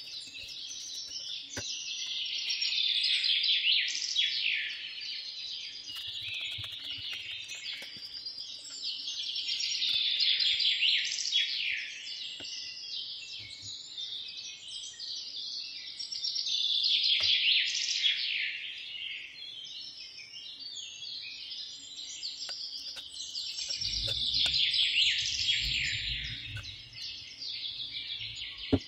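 Many small birds chirping and twittering at once in a dense chorus that swells and fades about every seven seconds, with a few faint taps.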